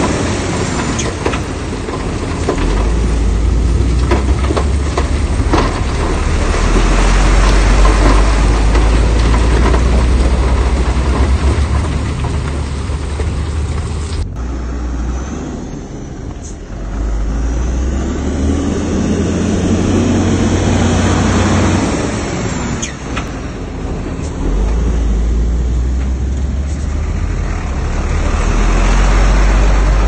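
Heavy diesel engine of earthmoving machinery running hard with a deep steady rumble, its pitch rising and falling partway through. Scattered knocks come in the first half, and the sound changes abruptly about halfway.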